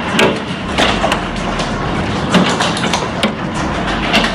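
Heavy hail pelting down: a dense hiss with frequent, irregular sharp knocks as hailstones strike hard surfaces.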